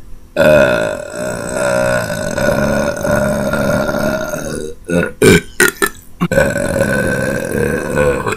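A man belching loudly: one long belch lasting about four seconds, then several short sharp sounds, then a second long belch of about two seconds near the end.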